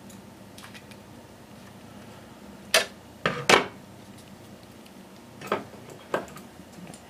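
Scissors snipping as a strip of Velcro is trimmed: a handful of sharp metallic clicks, three close together about three seconds in and two more a couple of seconds later.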